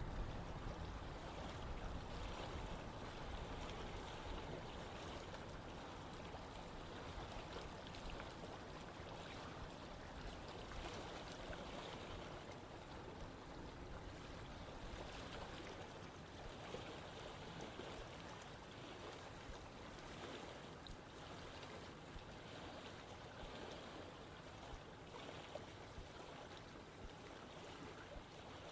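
Running water flowing steadily, an even rushing with a fine splashing flicker. It eases slightly in level over the stretch.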